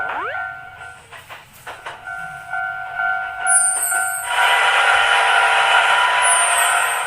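Japanese level-crossing warning bell ringing steadily, the kan-kan alarm. About four seconds in a train passes over the crossing, a loud rushing, rattling noise with a high whine that masks the bell.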